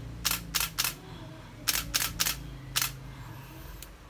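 Canon EOS 60D DSLR shutter firing, a quick run of sharp clicks, three and then four, as the camera is test-fired after its power IC was replaced.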